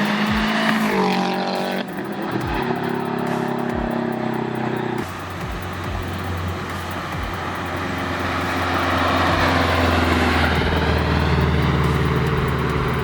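Subaru WRX STI's turbocharged 2.5-litre flat-four heard through a cat-less turbo-back stainless exhaust with dual resonators and quad tips. It revs up about a second in, then runs steadily, growing louder in the second half.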